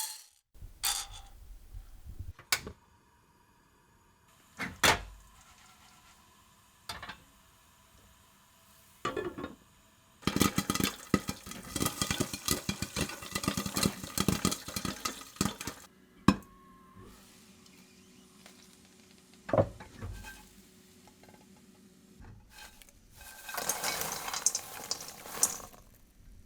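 Kitchen handling sounds of pots and utensils: several separate knocks and clinks, then a dense rattling stretch about ten seconds in that lasts some six seconds, and another rattling stretch near the end.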